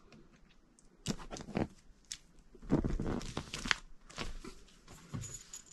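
Irregular rustling and crinkling handling noise, loudest in the middle, as a cable bundle is picked up and moved.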